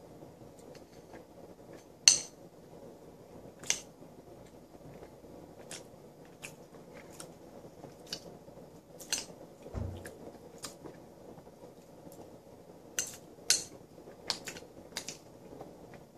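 Metal spoon clinking and scraping against a bowl while eating: about a dozen sharp clinks spread through, the loudest about two seconds in, with quiet chewing between them. A dull low thump near the middle.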